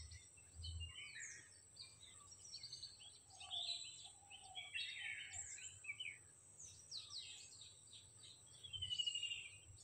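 Faint scattered calls of several birds, short chirps and sliding whistles from different directions, with a thin steady high tone underneath.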